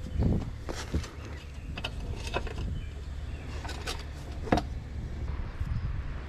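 Scattered clicks and knocks of a deep-cycle golf cart battery and its plastic carry handle being handled and settled into the battery bay, with the sharpest knock about four and a half seconds in, over a steady low rumble.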